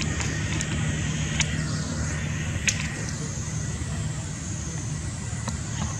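A steady low motor hum, like a distant engine running, with a few sharp clicks scattered through it.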